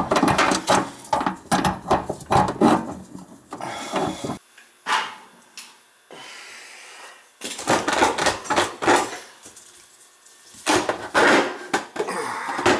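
Metal clinking, scraping and rattling as an old Dishmaster faucet is worked loose and pulled free: first the fittings under the sink, then the faucet body clattering against the stainless steel sink deck as it is lifted out. The handling is busy at the start, eases off in the middle and picks up again near the end.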